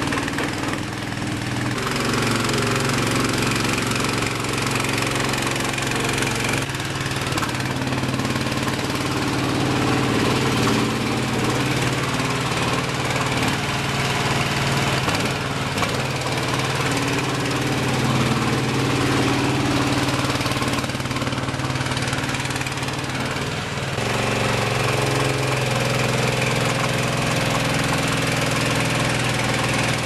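A homemade mini skid steer loader's 15 hp gasoline engine running steadily under way, its note shifting slightly about two seconds in and again near the end.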